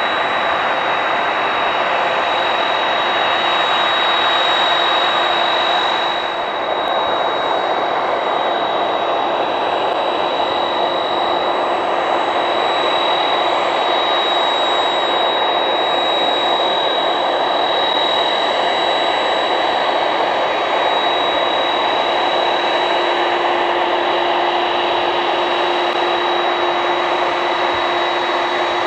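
Boeing 767-300ER's twin turbofan engines running at low taxi power: a steady jet rumble with a high, steady whine over it, and a lower steady hum joining about two-thirds of the way through.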